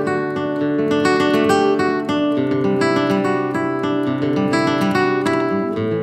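Background music: acoustic guitar strumming chords at a steady level.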